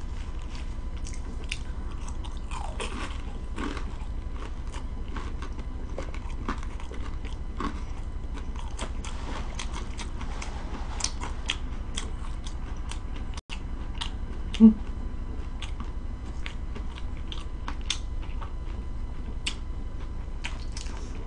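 A person chewing and biting food with many small crunches and wet clicks, with one short, louder low sound about fifteen seconds in.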